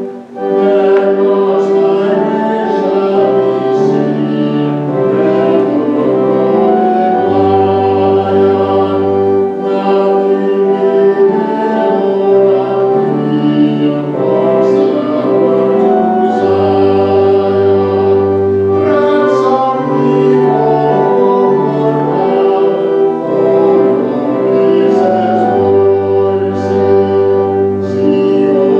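Church music: a choir singing with instrumental accompaniment, long held notes over a bass line that steps to new notes every second or two.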